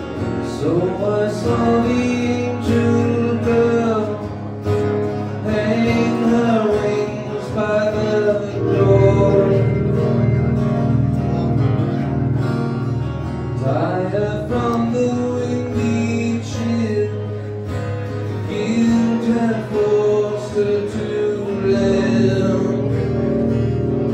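Man singing live with acoustic guitar, phrases sliding up into long held notes over steady strumming.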